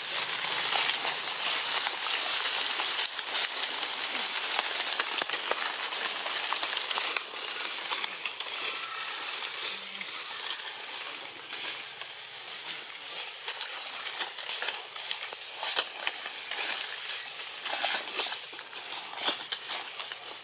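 Outdoor background of a dense, high crackling hiss made of many small clicks, a little louder in the first half.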